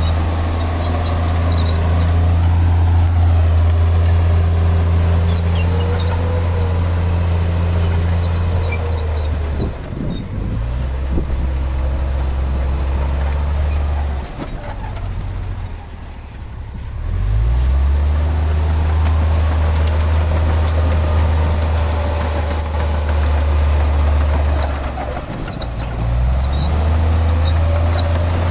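Heavy diesel engine of construction machinery working, a deep steady drone that changes speed with the load. It drops off around ten seconds in, falls lowest for a few seconds in the middle, then picks back up, with another short dip near the end.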